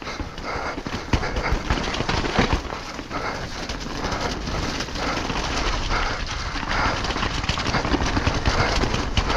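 Downhill mountain bike running fast over a rough, muddy trail: a steady rushing noise with irregular rattling knocks from the bike as it hits bumps and roots.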